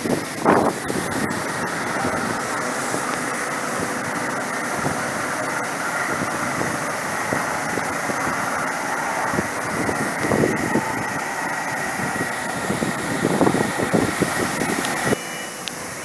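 Steady mechanical roar of a grain dryer's fans, with a tipper truck's engine running as the truck pulls away. The roar swells a few times and drops suddenly near the end.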